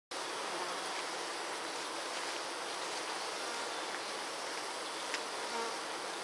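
Honey bees fanning their wings at the hive entrance, a steady, even buzzing hum; the workers are fanning to cool and ventilate the hive in hot weather.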